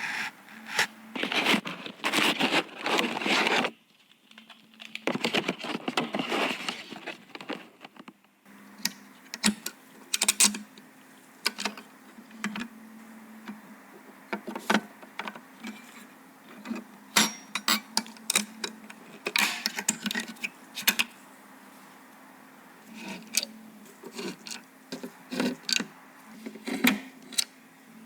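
Hands handling computer parts: rustling and scraping for the first few seconds, then scattered sharp clicks and taps of small plastic and metal pieces over a faint steady hum.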